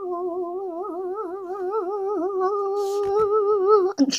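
A young girl's voice holding one long sung note with a wavering, vibrato-like pitch, with a brief knock near the end.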